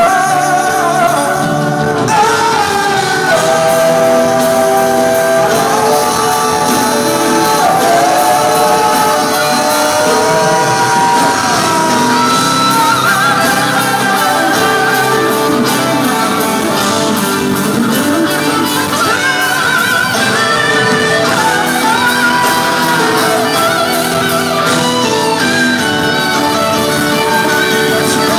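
Live pop ballad performed by a male vocal group: sung melody with long held notes over a band with guitar, echoing in a large concert hall.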